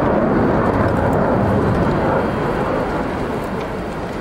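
Aircraft engine noise from an aircraft flying past, a loud, dense roar that slowly fades over the few seconds.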